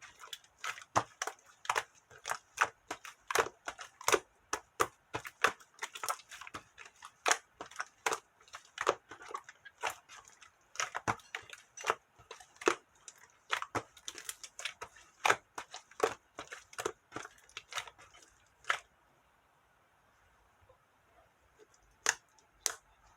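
Slime being kneaded and pressed by hand, giving a long run of sharp sticky pops and clicks, about two to three a second. They stop about 19 seconds in, and two more follow near the end.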